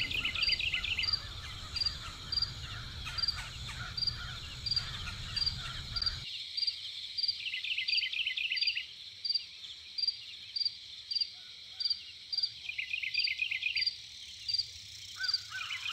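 Outdoor wildlife ambience: a short high-pitched chirp repeating steadily about twice a second, with a few brief warbling calls. A low rumble of background noise underneath stops abruptly about six seconds in.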